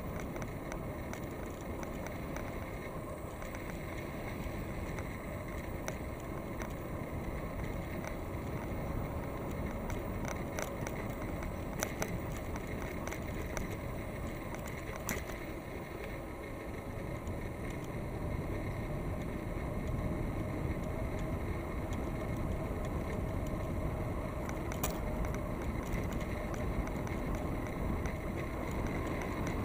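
Wind rushing over the microphone and tyre noise from a bicycle rolling along a paved cycle path, with a few small clicks and rattles. The rushing grows a little louder in the second half.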